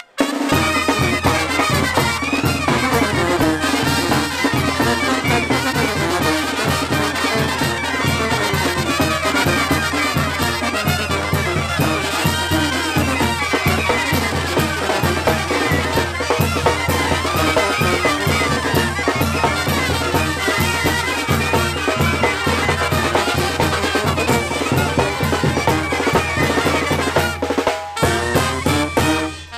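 Brass band music for a Oaxacan calenda: trumpets and trombones playing a lively tune over a steady drum beat.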